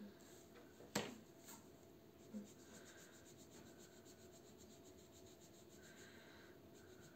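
Felt-tip marker coloring on paper: faint, quick, repeated scratchy strokes. A sharp click about a second in is the loudest sound.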